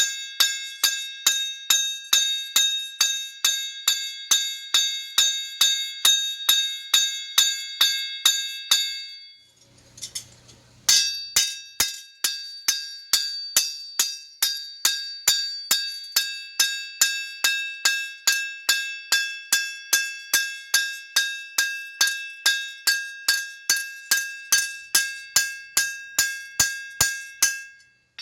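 Hand hammer cold forging a bar of CPM Z-Tough steel on an anvil: a steady run of blows, about two to three a second, each with a bright high ring that carries into the next. The blows pause for about two seconds near the middle, with a faint low hum, then start again.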